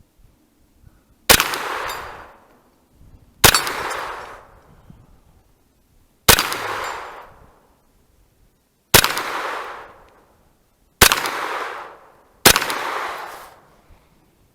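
Kel-Tec Sub2000 9mm carbine fired six times at an irregular, slow pace, each shot sharp and followed by about a second of echo.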